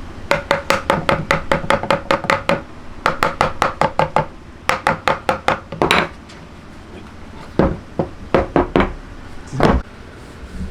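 Rapid hand-struck knocking on wood, about five strikes a second in runs of several, each strike with a short ringing tone. A longer, noisier stroke comes a little past the middle and a single heavier knock near the end.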